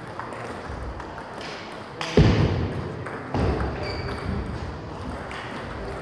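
Table tennis balls clicking off paddles and tables, scattered hits from more than one table, echoing in a large hall, with a louder thump about two seconds in.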